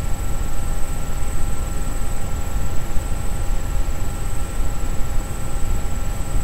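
Steady low rumbling background noise with a few faint constant whines over it, unchanging throughout; no speech.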